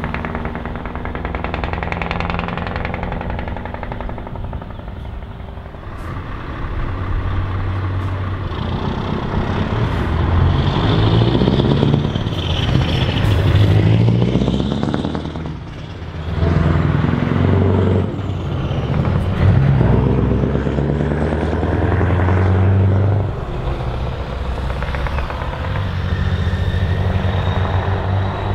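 Scania V8 truck engines with loud exhausts pulling away under acceleration. The engine note climbs, drops sharply at a gear change about halfway through, climbs again, and drops once more a few seconds before the end.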